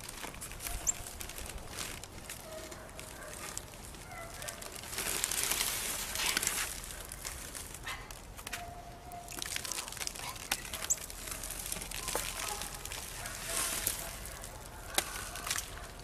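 Plastic sheeting crinkling and rustling, with gritty scraping of sand and cement, as a hypertufa bird bath casting is worked loose from its mold and lifted off.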